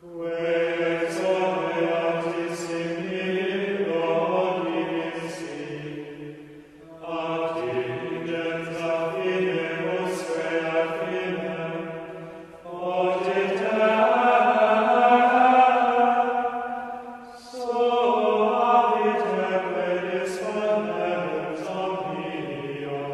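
Sung chant by a male voice line, slow unaccompanied phrases of about five to six seconds each, four in all, with short breaks between them, in the style of Gregorian plainchant.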